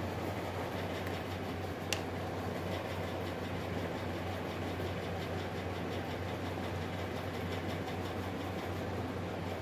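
Steady low mechanical hum with a rushing background noise, and a single sharp click about two seconds in.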